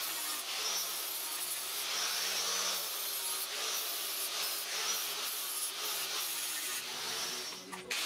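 Angle grinder with an abrasive disc grinding into square steel tubing: a steady gritty hiss with a faint whine that rises and falls as the disc bites. The sound drops away briefly near the end.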